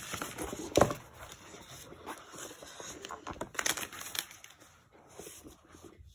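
Hands handling a new iPad and its box: rustling and crinkling, with a sharp knock about a second in. The handling noise fades near the end.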